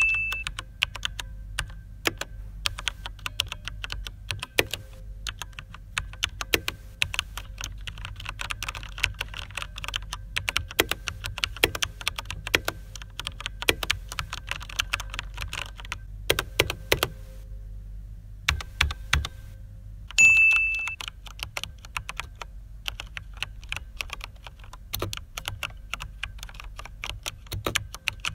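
Typing on a Corsair K95 RGB Platinum mechanical keyboard with Cherry MX Speed switches: a stream of fast key clicks, as a sound test comparing ABS and PBT keycaps. A short beep sounds at the start and again about twenty seconds in.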